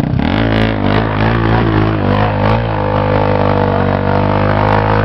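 Honda XR 250 Tornado's single-cylinder engine revved hard from idle, its pitch climbing and wavering for about two seconds, then held at high revs as the stuck motorcycle strains in mud, dropping back toward idle at the very end.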